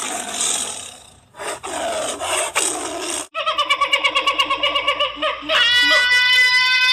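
Wild animal calls: a breathy, rasping noise in several pieces, then after a sudden break a fast run of short pitched calls, several a second, rising into one long held call.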